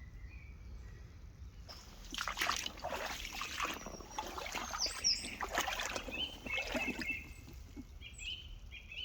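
Splashing and sloshing of shallow stream water for several seconds, with birds chirping and whistling.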